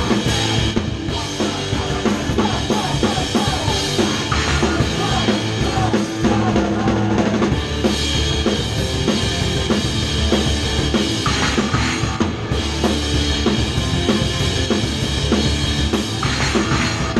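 Punk rock band playing live, heard from right at the drum kit: the drums are loud and close, with crashing cymbals and the rest of the band behind them.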